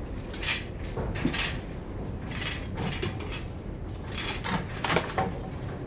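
Metal bicycle parts and hand tools being handled, in a series of short clanks and rattles, the loudest about five seconds in.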